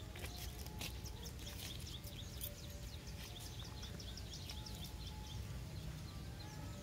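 Outdoor ambience with a bird's rapid, high chirps repeating about five times a second, over a steady low background hum. A few light clicks in the first half come from plastic toy bricks being handled.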